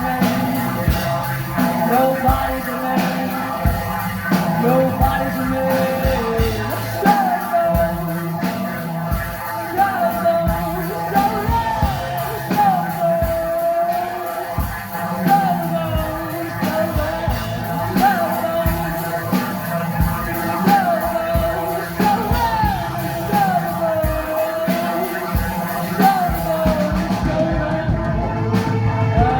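A rock band playing live, with singing, dense drum hits and a melody that slides up and down in a phrase repeating about every two seconds.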